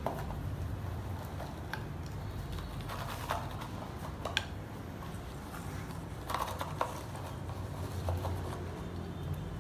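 Potting soil being scooped from a cut plastic bottle into a terracotta pot and worked in around the plant: scattered soft rustles, scrapes and small taps a second or so apart, over a steady low hum.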